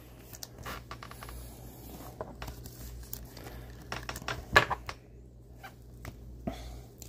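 A trading card slid into a clear plastic penny sleeve and a rigid plastic toploader, giving light plastic rustling and scraping, with a sharper click about four and a half seconds in.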